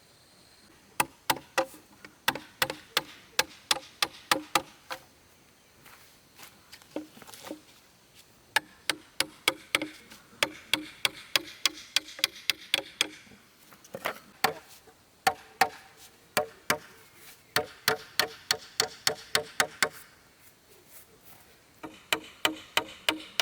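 Hammer driving nails into wood: quick runs of ringing strikes, about three or four a second, broken by short pauses between nails.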